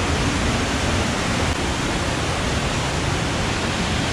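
Steady, even rushing of a mountain stream and waterfall pouring over rocks, loud enough that a voice is barely heard above it.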